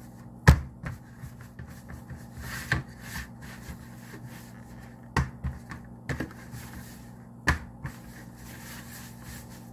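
Hands working bread dough on a flour-dusted plastic tray: about five sharp knocks as the dough is pressed and dropped onto the tray, with soft rubbing and scraping between them as loose flour is gathered in.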